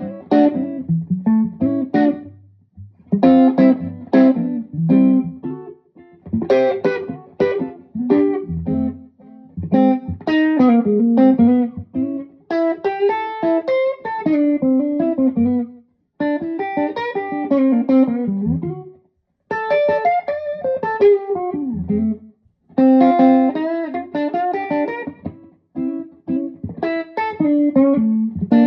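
1960 Gibson ES-345 electric guitar played through a Marshall JTM45/100 Super 100 valve amplifier. It plays phrases of picked single notes and chords with string bends, broken by short pauses.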